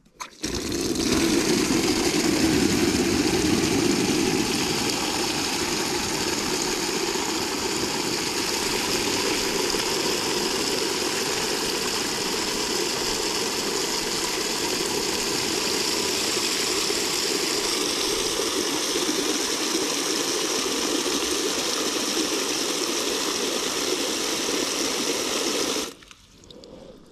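Tap water running from an outdoor spigot into a black solar shower bag, a steady loud rush as the bag fills. The tap is shut off near the end and the flow stops abruptly.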